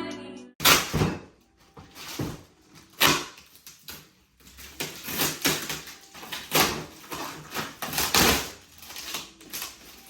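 Irregular knocks, clatters and rustles of objects being handled, about a dozen short sounds, the loudest just under a second in.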